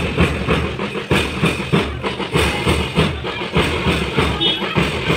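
Marching band drums, mostly big bass drums, beating a steady march rhythm of two or three strokes a second.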